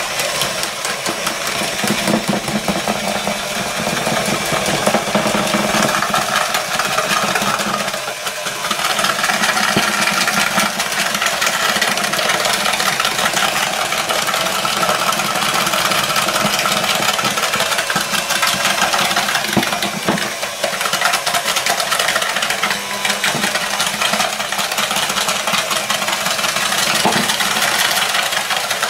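Electric hand mixer running steadily, its twin beaters churning and rattling against a plastic bowl as butter and sugar are creamed together. The level eases off briefly twice.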